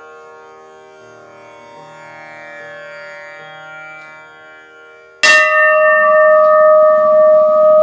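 Soft devotional instrumental music with held notes, then about five seconds in a single loud bell strike that rings on steadily.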